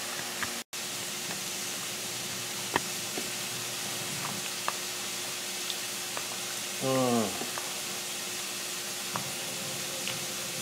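A metal spoon stirring sour cream and salsa in a plastic bowl, with a few faint clicks of the spoon against the bowl over a steady hiss. About seven seconds in there is a brief sound that falls in pitch.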